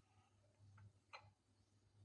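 Near silence with a low hum and two faint clicks, the second and louder just past halfway.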